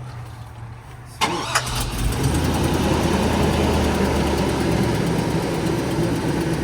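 A car engine cranks and catches about a second in, then settles into a steady idle.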